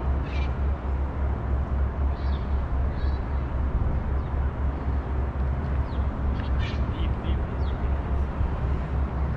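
Outdoor ambience: a steady low rumble with short bird calls scattered through it, several close together a little past the middle.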